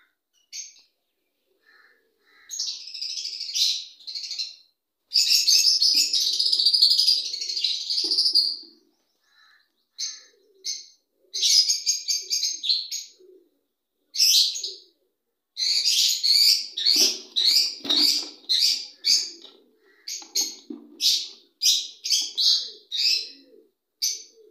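Parakeets calling: harsh, high chirps and screeches in bursts, a few long runs and many short quick calls.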